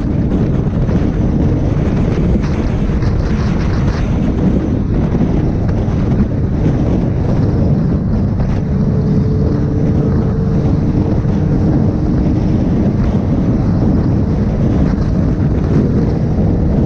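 Heavy wind rush on a helmet-mounted microphone from a motorcycle at highway speed, with the bike's engine running steadily underneath.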